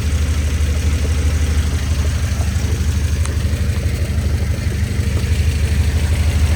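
1993 Nissan 240SX engine idling steadily with a fast, even low pulse. The transmission is making some noise, which the owner suspects comes from worn internal bearings, possibly the input shaft or countershaft bearings.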